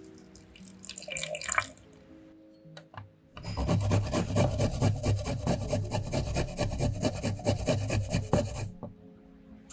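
Garlic cloves grated on a fine stainless-steel rasp grater: rapid scraping strokes from about three and a half seconds in, lasting about five seconds. Before that, a brief splash of vinegar poured from a measuring cup onto basil leaves, with soft background music throughout.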